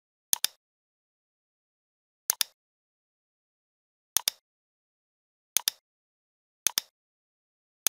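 Computer mouse button clicking, each click a quick press-and-release pair, repeated about every one to two seconds as path points are placed one after another: five clicks, with a sixth at the very end.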